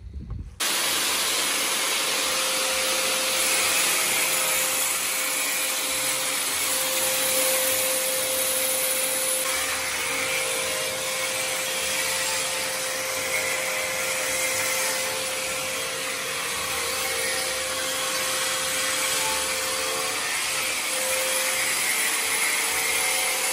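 An electric motor running steadily, a constant hiss with one steady hum through it.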